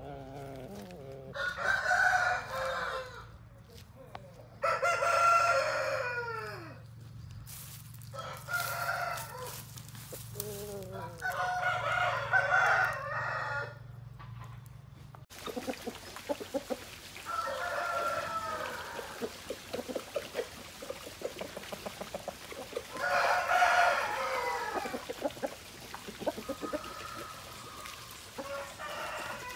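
Aseel roosters crowing, about six crows a few seconds apart, each a second or two long and trailing off at the end. A low steady hum lies under the first half, and light clicking in the second.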